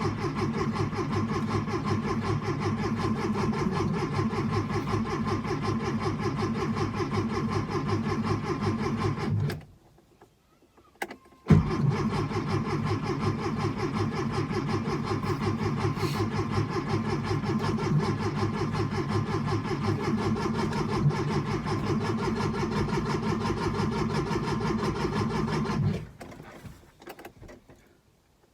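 1966 Porsche 912's air-cooled 1.6-litre flat-four being cranked by its starter without catching: a long spell of even, fast cranking, a brief stop with a click or two, then a second long spell of cranking that ends without the engine firing. This is a failed start attempt on a car that is known to need several tries to start.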